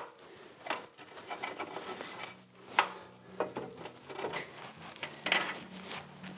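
Knocks, clinks and scraping of metal motorcycle parts being handled as the swing arm is fitted back onto the frame. About half a dozen sharp knocks are spread through the clip, the loudest about three seconds in. A faint low hum sets in a little after two seconds.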